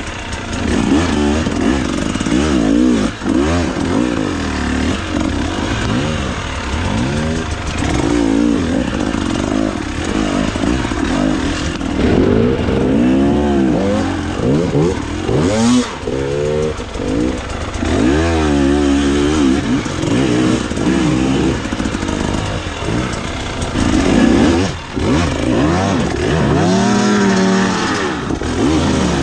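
Two-stroke KTM 300 TBI enduro dirt bike engine being ridden hard, revving up and down over and over, its pitch rising and falling every second or two.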